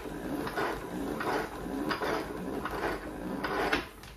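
O-Cedar spin mop bucket's foot pedal pumped repeatedly, each press spinning the wringer basket with the mop head in it: a rhythmic series of about six noisy strokes, roughly one every 0.7 seconds, stopping just before the end. The spinning wrings the water out of the mop head.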